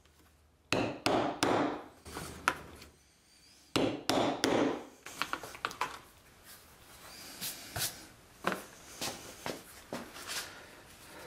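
Leather maul striking a metal punch through heavy holster leather on a poly cutting board: three hard knocks about a second in, a single one, three more hard knocks around four seconds, then a run of lighter taps and knocks.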